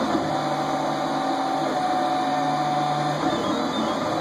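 Robo 3D printer running a print: its stepper motors whine in steady tones that change pitch as the print head moves, over the steady hiss of its cooling fan. The lowest tone stops about three seconds in.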